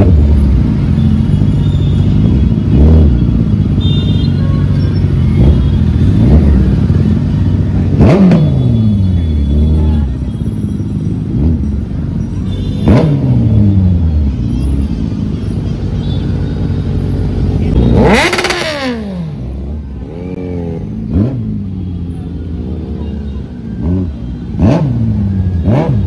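Superbike engines running at walking pace, blipped into sharp revs every few seconds, each rising fast and then falling away. The biggest rev comes about two-thirds of the way through.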